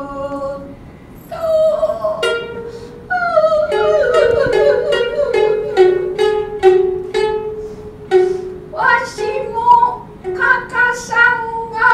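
Futozao (thick-necked) shamisen of gidayū-bushi playing an interlude of plucked notes. There is a short lull near the start, then a quick run of notes, then sharper strokes spaced about two a second near the end.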